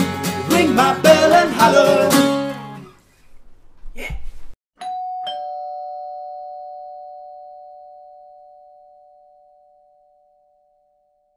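An acoustic guitar strum and singing end the song about two and a half seconds in. After a click, a doorbell sounds a two-note ding-dong chime, a higher note and then a lower one, and both notes ring out and fade slowly.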